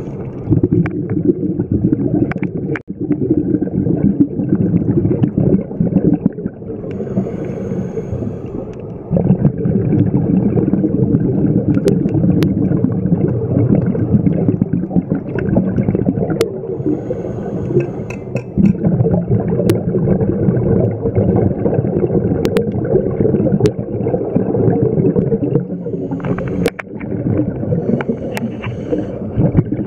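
Underwater scuba sound heard through a camera housing: a continuous bubbling rumble from divers' exhaled regulator bubbles, with scattered sharp clicks.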